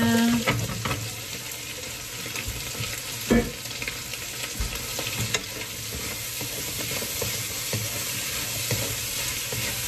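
Sliced carrots tipped into a hot wok of chicken and egg, which keeps up a steady sizzle, with wooden spatula stirring and scraping against the pan. A single sharp knock comes about three and a half seconds in.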